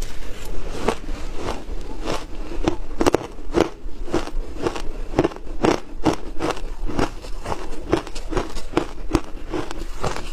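Shaved ice being chewed close to a clip-on microphone: a steady run of crisp, icy crunches, about two a second.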